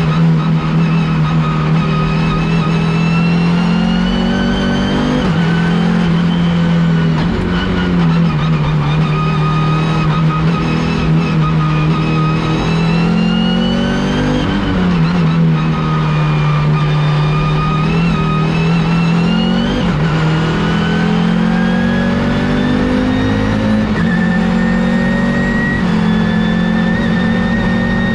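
Turbocharged five-cylinder engine of an Audi S2-R quattro race car at racing speed, its pitch rising and dropping back several times, then climbing steadily over the last several seconds as it pulls through a gear.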